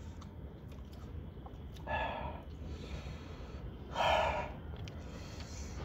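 A man breathing out heavily twice, about two seconds apart, each followed by a quieter breath in.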